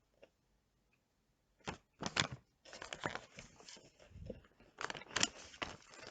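Close-miked crackly tearing and crinkling as a Nando's chicken meal is torn apart and handled, coming in irregular bursts that start about a second and a half in.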